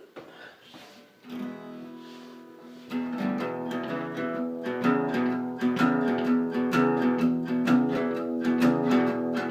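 Acoustic guitar intro: a chord rings out about a second in, then steady, regular strumming starts about three seconds in and carries on louder.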